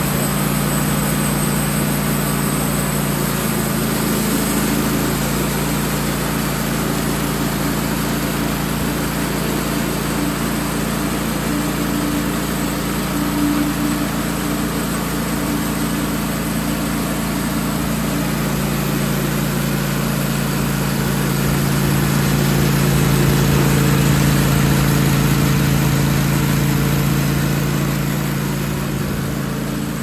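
Wood-Mizer portable bandsaw sawmill running under load, its engine driving the band blade through a 30-inch pine log in a steady drone. It swells a little louder about two-thirds of the way through.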